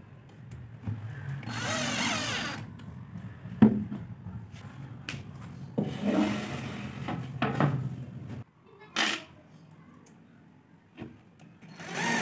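12 V cordless drill-driver whirring for about a second, followed by knocks and scraping of plywood panels being handled and fitted into place, with a sharp knock loudest of all.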